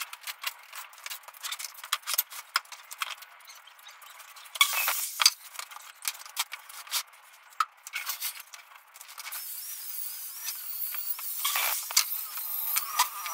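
Scattered knocks, clicks and clatter of cut plywood pieces and power tools being handled on a sheet-metal-topped work table, with louder knocks about five seconds in and again near the end.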